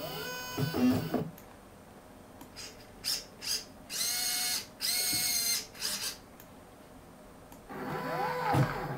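Stepper motors of a 3D-printed six-axis robot arm whining as its joints move. The pitch sweeps up and down as the axes speed up and slow down near the start and again near the end, with two short steady whines in the middle.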